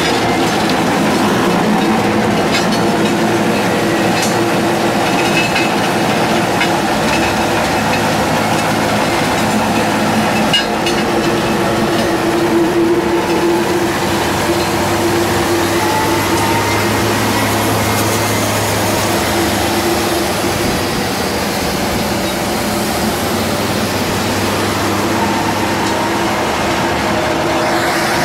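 New Holland T7200 tractor running steadily under load while its PTO-driven stone crusher grinds rocks into the soil, a continuous heavy rumble with rattling from the crusher.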